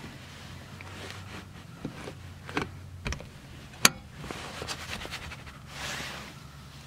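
A hand working a car seat belt buckle and its strap under a child car seat: rustling with a few plastic clicks, the sharpest snap coming about four seconds in.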